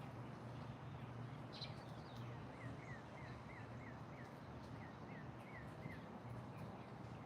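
A songbird calling: one short high chirp, then a run of about a dozen quick, falling whistled notes, about three a second, over a steady low outdoor hum.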